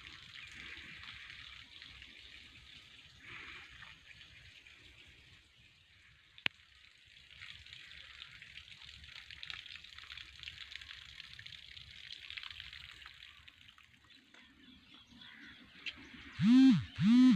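Faint, steady high hiss of wet rural outdoors just after rain, with one sharp click about six and a half seconds in. Near the end, two short loud calls, each rising and falling in pitch, from a voice or an animal.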